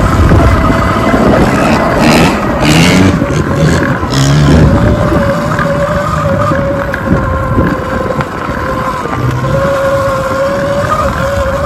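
Off-road motorcycle riding along a dirt track, heard from the rider's own camera: heavy wind rumble on the microphone over a steady whine, with a few short bursts of hiss about two to four and a half seconds in.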